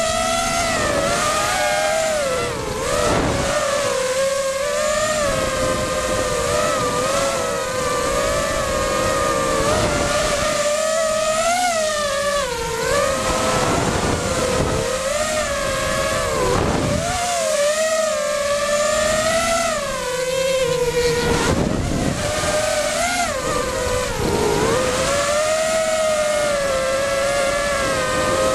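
Four brushless motors (Cobra 2204 2300 KV) of a 5-inch FPV racing quadcopter spinning 5-inch three-blade props, heard from the onboard camera: a steady whine whose pitch rises and falls with the throttle and briefly drops several times.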